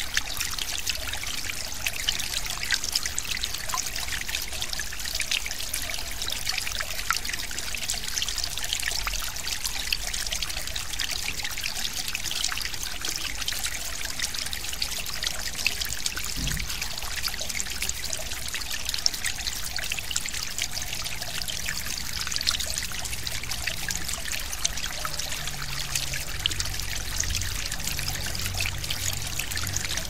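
Small stream flowing: a steady trickling, splashing water sound full of tiny crackles.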